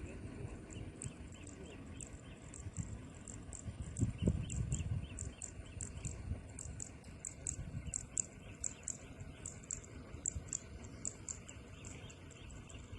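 Insects chirping: short, high-pitched chirps repeating a few times a second over a faint low rumble, with a dull thump about four seconds in.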